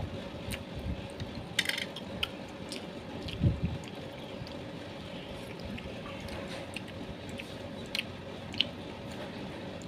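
Someone chewing grilled meatballs, with scattered wet mouth clicks and smacks over a faint steady hum, and a low thump about three and a half seconds in.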